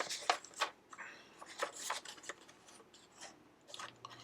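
Paper rustling and light plastic clicks as a sheet of paper is handled and fitted into the LEGO Ideas Typewriter's paper holder, busiest in the first couple of seconds and then a few scattered clicks.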